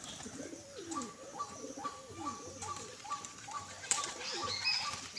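Domestic pigeons cooing, low falling coos repeated again and again. Behind them a short higher note repeats about twice a second, and there is one sharp click about four seconds in.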